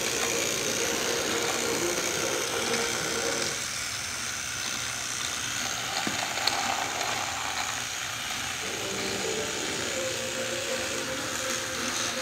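Battery-powered toy train engines whirring, their small motors and plastic gears giving a steady buzzing whine with a ratcheting edge as they run along plastic track. One whine drops out for a few seconds in the middle.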